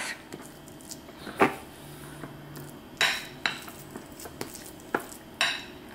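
A metal spoon pressing and scraping soft cooked food flat in a glass container. There are a few sharp clinks of spoon on glass: about a second and a half in, around three seconds, and twice near the end.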